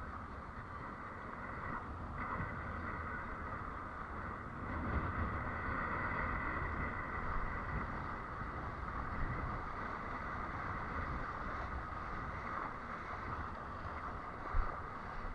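A windsurf board moving over the sea: steady rushing of water along the hull with wind buffeting the microphone, and a single low thump near the end.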